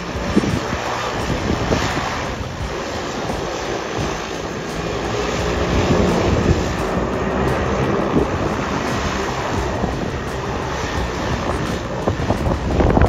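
Single-engine turboprop floatplane, a de Havilland Canada DHC-3 Turbine Otter, running at low power as it taxis on its floats up to a dock, its propeller still turning, with wind buffeting the microphone.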